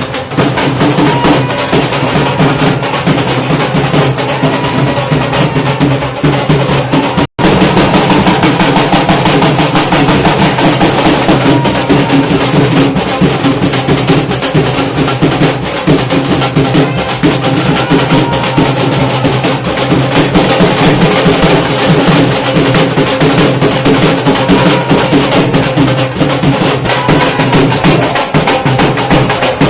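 Loud drum-led percussion music, dense and fast, running steadily; it cuts out for an instant about seven seconds in.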